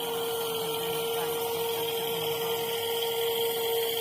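Electric motors of a WLtoys 16800 RC metal excavator running with a steady whine.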